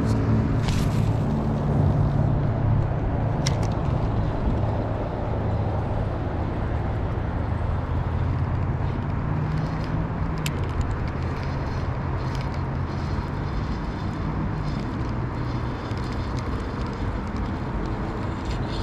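Steady rumble of road traffic with a low hum, and a few brief sharp clicks.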